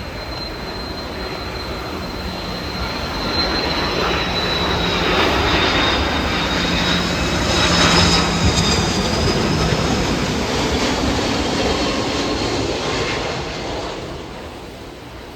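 An airliner's jet engines passing by, a high whine drifting slightly down in pitch over a broad roar that swells to its loudest about halfway through and dies away near the end.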